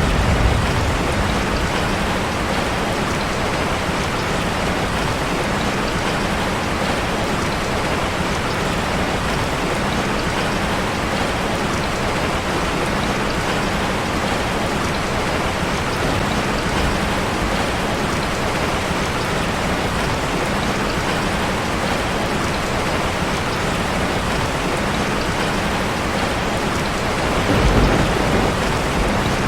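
Steady rain falling on a street, a dense even patter. A low rumble of thunder swells briefly near the end.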